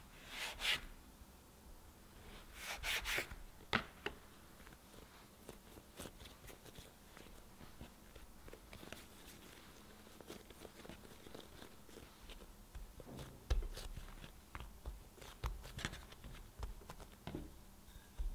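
Plastic dough scraper cutting through bagel dough and scraping the wooden board, twice in the first few seconds. Then soft squishing and tapping as the pieces are rounded and pressed flat by hand, with a few dull thumps on the board.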